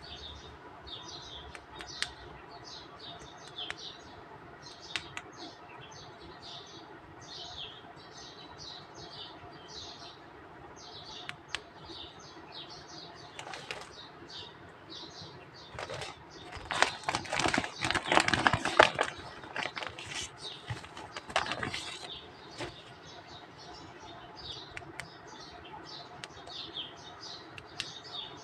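Small birds chirping over and over in short high calls. About halfway through there are several seconds of dense crackling and clicking, the loudest part, from the plastic pack and figures being handled.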